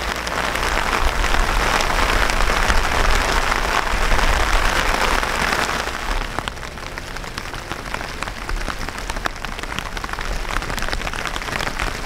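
Heavy rain falling, with many individual drops ticking close by. It is loudest for the first six seconds or so, then eases a little.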